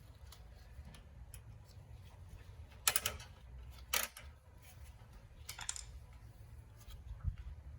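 A few sharp clicks and clacks of tools and small metal parts being handled on a VW Beetle's engine, the loudest two about three and four seconds in, over a low steady hum.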